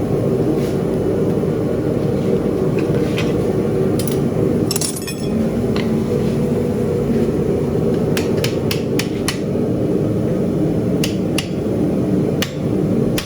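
Hammer blows on steel at the anvil, irregular single strikes and a quick run of about five, over the steady running noise of the forge.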